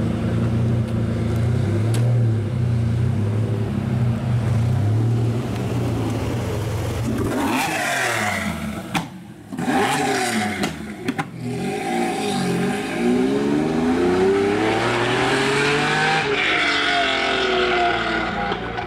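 Lamborghini Diablo's V12 idling steadily, then revving up and down a few times about eight seconds in, with sudden brief drops. It then pulls away, the engine note climbing steadily in pitch as it accelerates.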